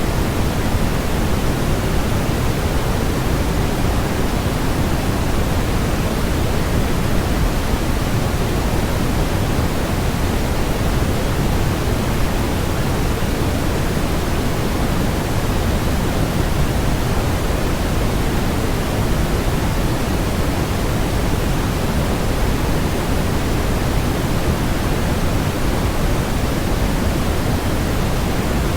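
Steady synthetic white noise: an even, unchanging hiss, fuller in the low end than at the top.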